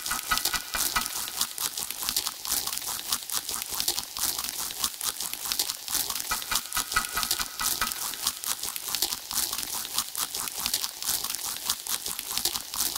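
Elektron Digitakt II sampler running a sequenced pattern of dense crackling, noisy clicks. A brighter chirping tone comes back near the start and again about six and a half seconds in. It is the weird sound the machine makes with an unwired operator.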